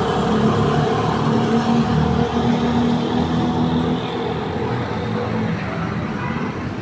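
An engine running steadily: a low hum with a few held tones that eases off a little about four seconds in.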